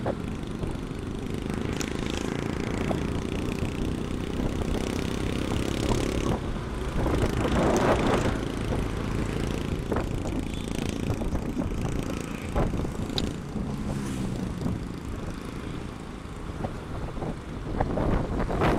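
Motorcycle running at road speed, a steady rumble of engine and road noise, with a few faint clicks.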